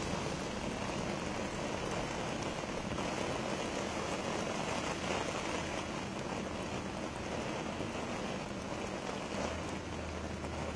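Heavy rain pouring down onto a paved street and parked cars, a steady even hiss. A faint low hum comes in near the end.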